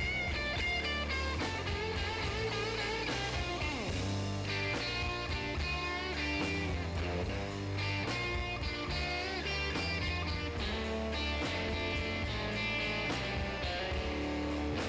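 Background music: an instrumental rock tune with plucked electric guitar over a steady bass line.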